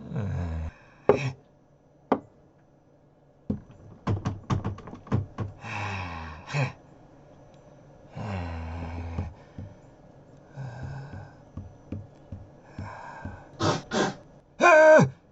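Wordless voice sounds, breaths and grunts, in short bursts mixed with sharp knocks and thumps. Near the end comes a louder cry that falls in pitch.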